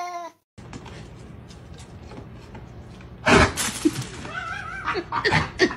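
A cat's drawn-out meow cuts off just at the start. After a short silent gap there is low room noise, then from about three seconds in a loud breathy burst followed by short wavering voice-like sounds.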